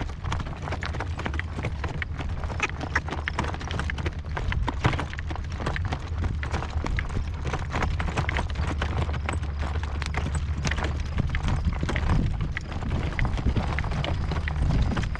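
A horse's hooves clip-clopping as it is ridden along, with wind rumbling on the microphone.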